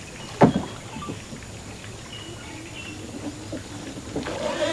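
A single sharp knock from the small hand-powered ferry boat about half a second in, over quiet boat and water noise.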